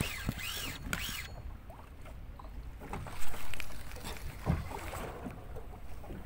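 Water and wind noise aboard a small boat at sea, with a few knocks from handling the fishing line. A short warbling squeak comes in the first second, and a loud rush of noise about three seconds in.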